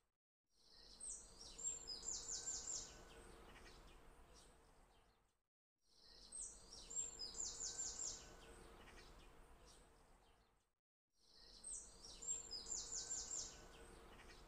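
Faint looped birdsong ambience: the same phrase of high chirps ending in a quick trill of about five notes repeats three times, about every five seconds, each pass fading out to a brief silence.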